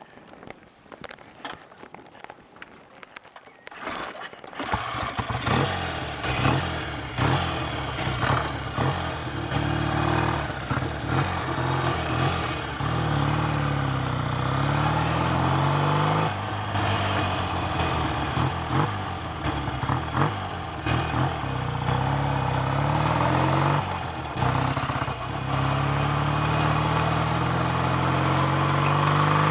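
BSA A65 parallel-twin motorcycle engine starting about four seconds in, then running and revving up and down over and over, with a few brief dips in level.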